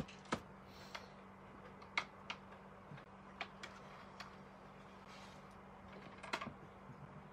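Irregular light clicks and taps, about a dozen, from a laptop and a watercolour palette being handled and shifted on a desk, with a quick cluster of clicks near the end.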